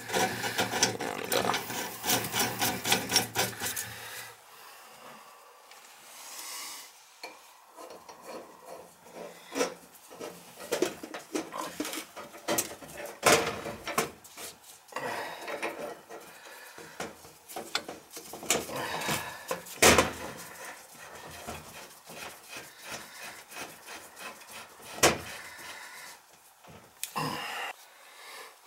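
Threaded metal pipe fittings and nipples being handled. A fast run of clicking and rasping for the first few seconds is followed by scattered clinks, rubs and rattles.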